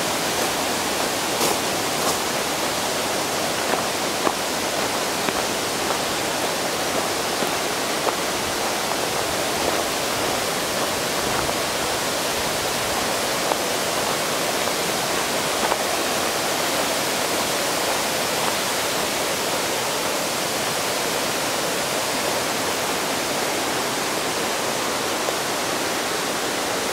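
Rushing water of a mountain stream or waterfall: a steady, even rush with a few brief splashes.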